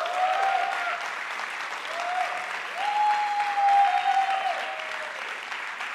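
Audience applauding and cheering, with drawn-out whoops rising over the clapping.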